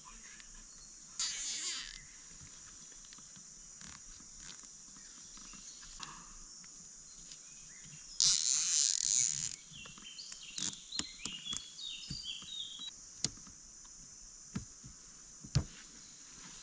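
Steady high-pitched insect chirring, with two loud bursts of noise about a second in and about eight seconds in, followed by scattered clicks and knocks.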